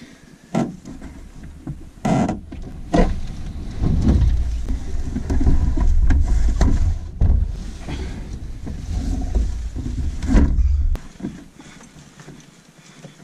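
Knocks and thumps of a Clipper canoe being hoisted overhead and shouldered for a portage, heard through a camera fixed to the hull. A heavy low rumble runs from about three seconds in until it stops abruptly near eleven seconds.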